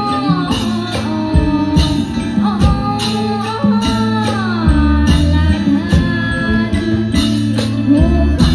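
Live Isan (northeastern Thai) folk band music: a pong lang log xylophone and drums keep a steady beat under a sliding melody line, with some singing.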